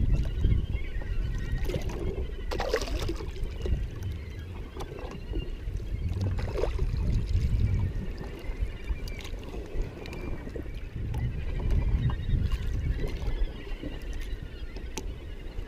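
Water lapping and sloshing against the hull of a drifting jet ski, over a fluctuating low rumble, with a few short knocks or splashes.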